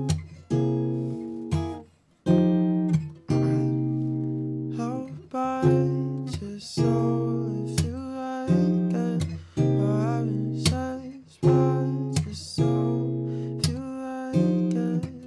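Acoustic guitar played in slow strummed chords, a chord struck about every second or so and left to ring and die away, with soft singing over it from about five seconds in.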